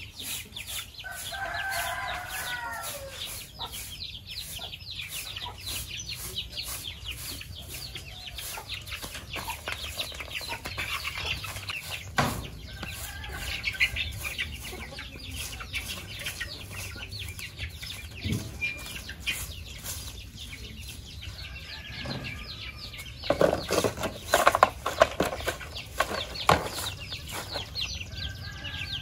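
A soft long-bristled broom sweeping a dirt and concrete yard in quick scratchy strokes, louder for a few seconds near the end, with chickens clucking and a rooster crowing about two seconds in.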